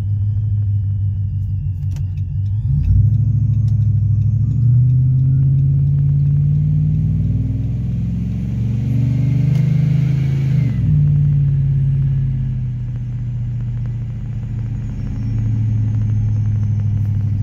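Supercharged Ram pickup's Hemi V8 with a TorqStorm centrifugal supercharger, heard from inside the cab while pulling away and cruising at low speed. The engine note rises and falls several times as it accelerates and shifts, with a faint supercharger whine climbing with the revs around the middle and cutting off sharply.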